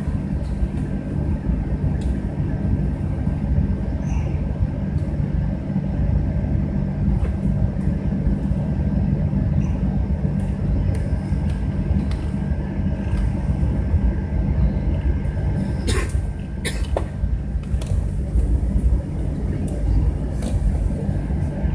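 Cabin noise inside a Boeing 737-900ER taxiing: a steady low rumble of its CFM56-7B engines at taxi power and the wheels rolling, with a faint steady whine over it. A few sharp knocks come near the end.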